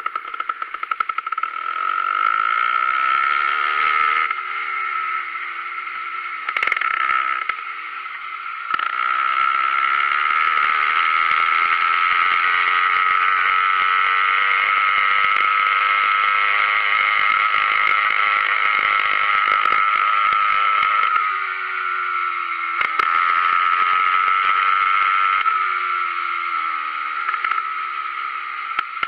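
Motorized bicycle's small gasoline engine running while riding, its pitch rising and falling with the throttle. Frequent knocks and rattles come from the bike jolting over rough ground.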